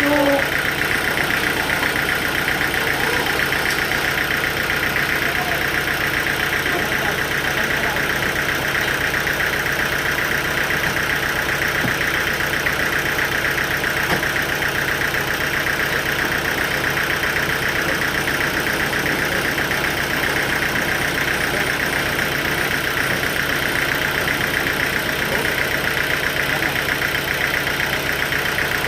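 Sawmill machinery running steadily, a constant mechanical drone with a high whine that holds level throughout.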